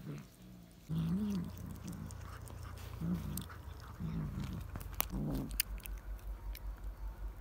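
Cat biting, chewing and tearing at a pigeon carcass, with sharp clicks of bites. Short, low calls that rise and fall in pitch come about five times. From about five seconds in, a low pulsing runs at about five beats a second.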